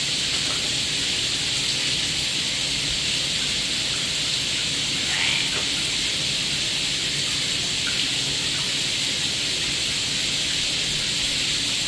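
Running water spraying into a bathtub: a steady, even hiss.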